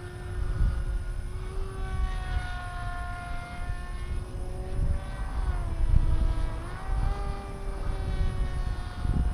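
The 3536/5 brushless motor and propeller of an FPV flying wing whining in flight. The pitch rises and falls with throttle, dipping about halfway through and climbing again, over a low rumble.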